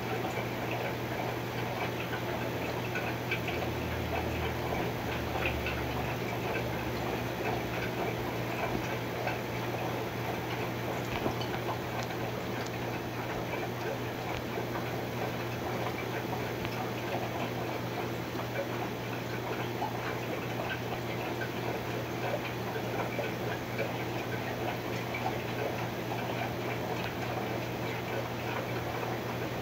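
Aquarium air bubbles rising and popping at the water's surface, a steady fizzing crackle of many tiny clicks, over a constant low hum from the tank's pump.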